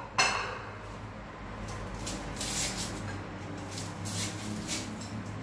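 Onion being peeled with a knife over a plate: a sharp knock just at the start, then faint dry crackles and scrapes of the papery skin coming away.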